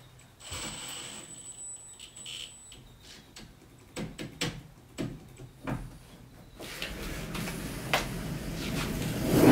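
Plastic trim clips and trim being worked by hand on a van body: scattered clicks and knocks, after a faint steady high tone at first, then a rising rush of noise that ends in a loud thump at the very end.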